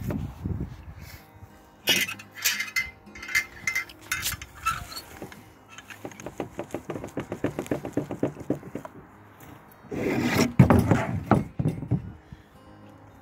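Hands pressing and packing damp soil-block mix in a plastic tub: scraping, rubbing and clicking, with a quick run of small clicks in the middle and a louder stretch of rubbing and knocking about ten seconds in.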